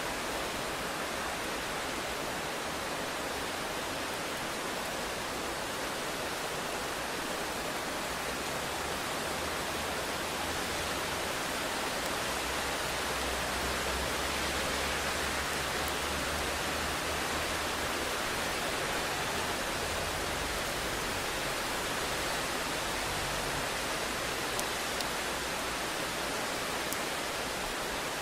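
Heavy rain falling steadily as an even hiss. A low rumble of distant thunder swells up about a third of the way in and fades out again before the end.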